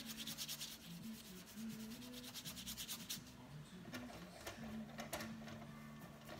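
A paint brush scrubbing rapidly back and forth on watercolour paper, wetting the sheet with water, for about the first three seconds; a few softer scattered brushing sounds follow.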